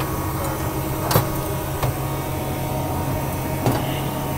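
Steady low machine hum, with three light clicks or knocks: about a second in, just under two seconds in, and near the end.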